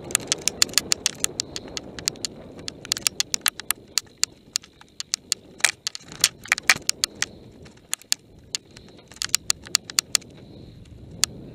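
Mountain bike rattling over a rough dirt singletrack descent: a run of sharp, irregular clicks and knocks, bunched in clusters, over a low steady rumble of wind and rolling tyres.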